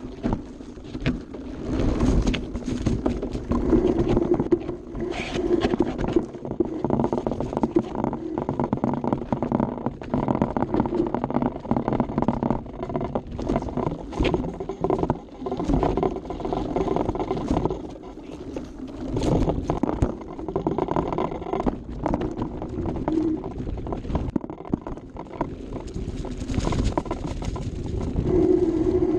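Santa Cruz Bronson mountain bike rolling fast over dirt and rock, heard up close from a camera on the frame: a continuous rough rumble of tyres on the trail, broken by frequent knocks and rattles as the bike hits rocks and roots, with the chain slapping.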